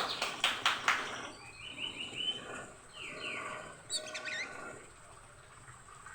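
Oriental magpie-robin (kacer) singing in breeding condition: a fast burst of harsh chattering notes, then varied whistled phrases with downward-sweeping and rising-and-falling notes, trailing off to quieter sound in the last second or so.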